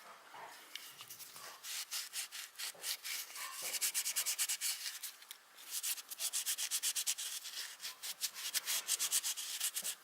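Cotton cloth wet with alcohol scrubbed quickly back and forth over the polymer grip of a Walther PPS pistol, cleaning off hand oil. The strokes come in two long runs with a short pause about halfway.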